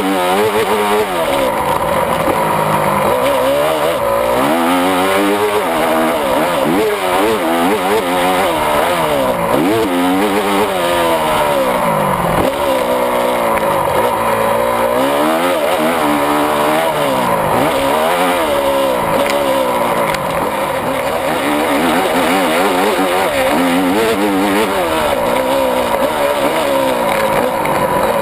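Honda 250 four-stroke single-cylinder motocross engine, heard close up from a handlebar-mounted camera. It revs up and drops back over and over as the bike is ridden hard around the track, with the pitch rising and falling every second or two.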